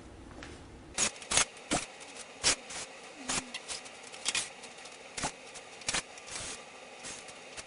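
A series of sharp clicks and knocks, about a dozen at irregular intervals starting about a second in, from hand tools and bolts as the cover bolts of a solar inverter's case are taken out.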